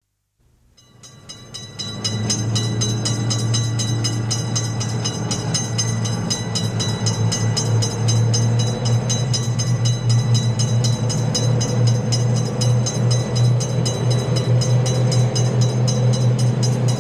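Railway level crossing warning bell ringing in rapid, even strokes, over a steady low hum. It fades in over the first two seconds.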